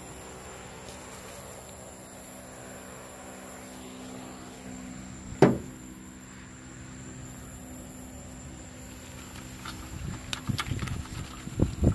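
Steady night background of insects with a steady high tone over a low steady hum, broken by one sharp knock about five and a half seconds in and a run of clicks and knocks near the end.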